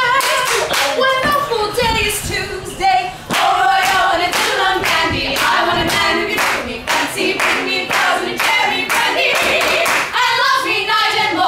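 Several women singing unaccompanied in harmony, with hand clapping keeping a steady beat along with the song.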